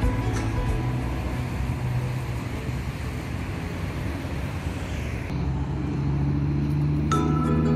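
Road traffic on a busy multi-lane road: a steady rush of car engines and tyres, turning into a steadier low engine hum about five seconds in. Light mallet-like music comes in just before the end.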